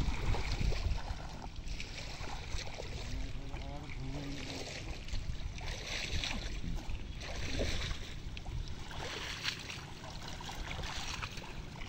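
Muddy shallow water splashing and sloshing as people wade through it and work a bamboo screen fence, with irregular small splashes throughout.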